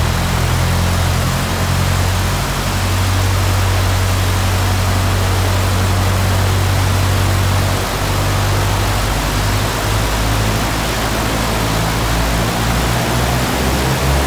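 Cessna 172D's new fuel-injected four-cylinder Continental IO-370 engine run up to full power on the ground, with a steady hiss of propeller blast over it. The engine note shifts about eight seconds in.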